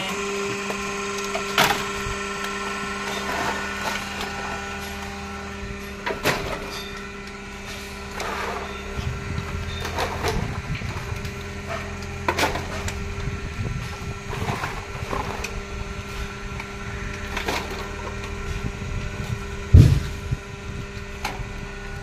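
Hydraulic baler's power pack running with a steady hum while plastic waste (bottles, film) cracks and snaps irregularly in the baling chamber, with a low rumble through the middle and one loud knock near the end.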